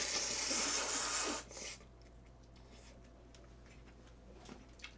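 Jjamppong noodles slurped up from the bowl in one loud, hissing slurp lasting about a second and a half. A few faint clicks follow.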